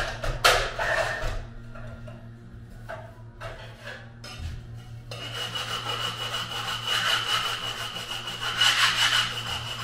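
Ceramic subway tile being cut and worked by hand at a manual tile cutter: loud short scraping strokes in the first second or so, a few lighter scrapes, then from about five seconds in a steady rasping rub.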